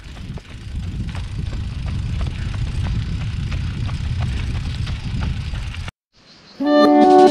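Wind noise on a moving camera's microphone while running on a dirt road, with faint footfalls about three times a second. It cuts off suddenly near the end, and guitar music starts.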